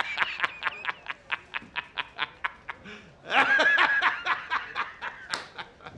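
A man laughing hard in quick, high-pitched ha-ha-ha bursts, about five a second, breaking into a longer squealing laugh a little past three seconds in, then more short bursts.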